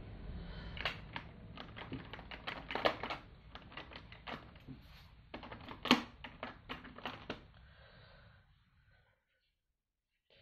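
Irregular light plastic clicks and taps, several a second, from a diamond painting drill tray and its small drills being handled; they thin out and stop about nine seconds in.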